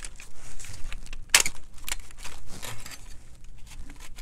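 Plastic housing of a 2004 Dodge Ram's integrated power module being pried and pulled apart by hand: a run of small plastic clicks and rattles, with one louder click about a second and a half in.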